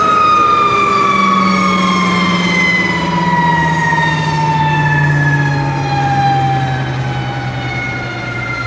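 Rolls-Royce Dart turboprop of a Hawker Siddeley HS748 winding down: a loud high whine sliding steadily lower in pitch, with a lower hum falling along with it, as the engine runs down after arrival.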